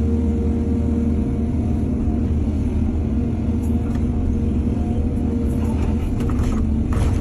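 Heavy diesel engine of an excavator running steadily under load, with a few short knocks near the end.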